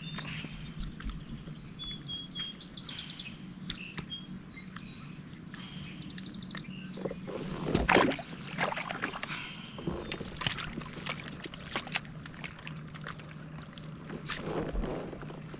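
Sounds of a fishing kayak on the water: a steady low hum with scattered knocks and small splashes, and one louder knock or splash about eight seconds in. Birds chirp during the first few seconds.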